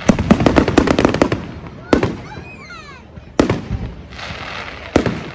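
Fireworks display: a rapid string of crackling bangs through the first second, then single loud bursts about every second and a half, with a fizzing crackle before the last one.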